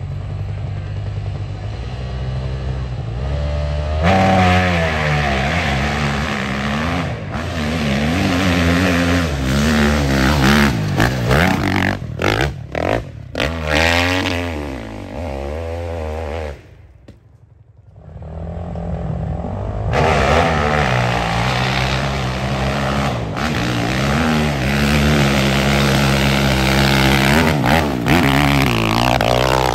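450cc dirt bike engines revving hard up a steep hillclimb, their pitch rising and falling with the throttle. The sound drops away for a few seconds about two-thirds of the way in, then another bike revs up hard.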